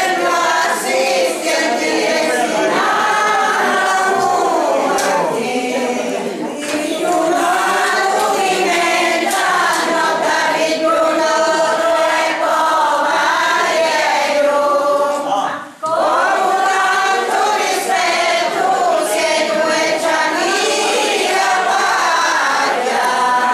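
A group of older voices singing a traditional Calabrian folk song together, with a short break for breath about sixteen seconds in.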